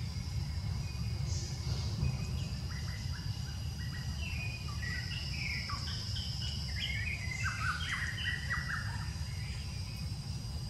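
A forest bird singing a rapid series of short chirping notes, starting a couple of seconds in and stopping shortly before the end, over a steady high insect drone and a low background rumble.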